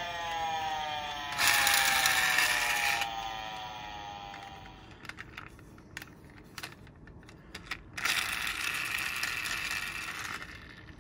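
Toy minicars rolling down a plastic slope, heard as a rolling rattle twice: once for about a second and a half, later for about two and a half seconds. Sharp clicks of the toys being handled come in between, and a falling tone fades out over the first few seconds.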